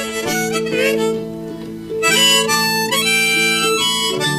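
Harmonica playing a short instrumental fill between sung lines of a country-folk song, with some bent notes, over steady guitar accompaniment.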